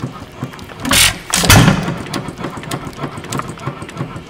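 Moody (Jacobson) sideshaft hit-and-miss gas engine running on its new muffler: it coasts with a fast light clicking from its valve gear and ignitor, then fires. There is a loud sharp beat about a second in and a heavier, lower one half a second later.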